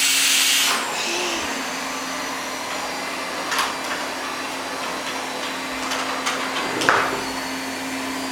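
Vacuum cleaner running with a steady hum; its loud airflow hiss drops away less than a second in and it carries on more quietly. A few short knocks sound over it, the loudest near the end.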